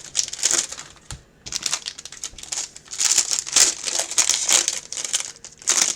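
Plastic trading-card packaging crinkling and being torn open by hand in irregular bursts, with a short lull about a second in.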